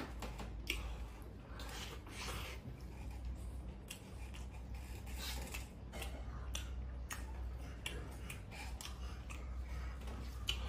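A person chewing and biting into a soft steamed bun filled with fatty pork belly: irregular soft mouth sounds, over a low steady hum.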